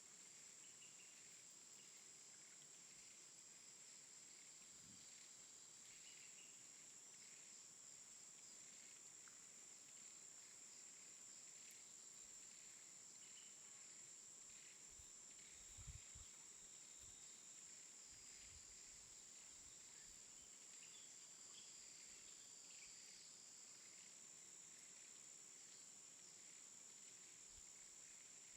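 Faint outdoor insect chorus: a steady high buzz with scattered soft chirps, near silence overall, and a brief low thump about halfway through.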